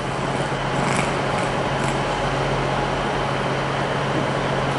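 Railway station platform ambience: a steady low hum over an even rumble, with a few faint clicks about one to two seconds in.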